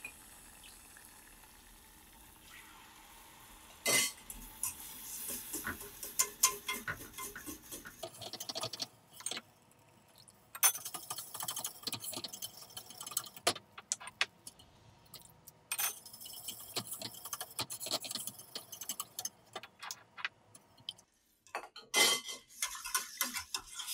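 Wire balloon whisk clinking and scraping against the sides of a stainless steel saucepan in quick runs of clicks, with short pauses, as beef stock is whisked into a roux for espagnole sauce. The first few seconds are quieter, with only light whisking.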